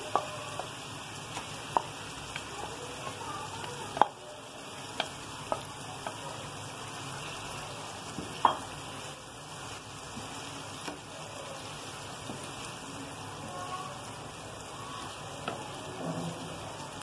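Marinated mutton liver sizzling steadily in hot oil and fried grated onion on a tawa, stirred with a wooden spatula, with a few sharp taps and pops scattered through it, the loudest about four and eight seconds in.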